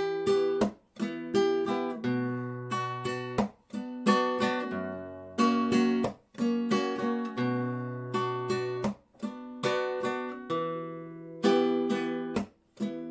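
Nylon-string flamenco guitar with a capo, strumming a rumba slowly: a steady rhythm of sharp strummed chords, a few of them cut off suddenly.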